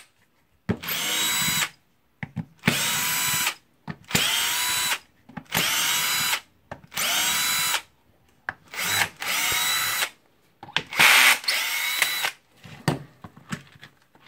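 Cordless drill-driver backing out the housing screws of an impact driver. It makes about seven short runs, each winding up in pitch and then holding steady for about a second, with brief clicks of handling between runs.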